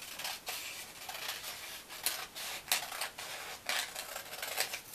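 Scissors snipping through a sheet of printer paper, an irregular series of crisp cuts with paper rustling between them as the edge is trimmed off along a line.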